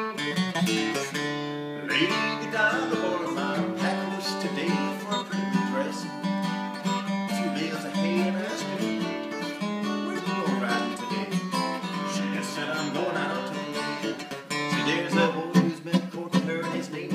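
Acoustic dreadnought guitar strummed in an upbeat rhythm.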